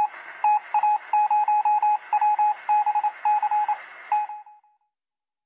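Rapid, uneven beeps of one steady tone, keyed on and off like Morse code, over a radio-like hiss: a text-typing sound effect. The beeping stops about four and a half seconds in.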